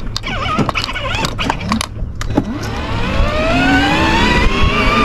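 Electric drive motors of a 24V kids' ride-on Mercedes-Benz G63 whining as the car is driven by remote, with a few clicks early on. From about two and a half seconds in, the whine rises steadily in pitch as the motors speed up to the higher speed setting.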